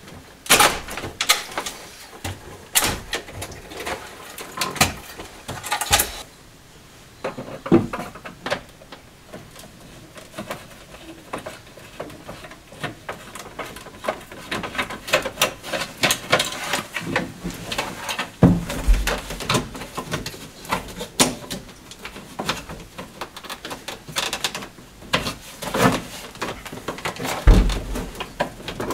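Dashboard of an Opel Kadett D being stripped by hand: irregular clicks, knocks and rattles of plastic trim, wiring and screwdriver work, with two dull thumps, one about two-thirds of the way through and one near the end.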